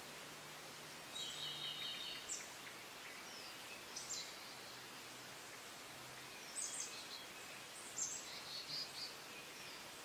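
Small birds chirping and twittering in short high calls, four or five times, over a steady faint hiss of outdoor background noise.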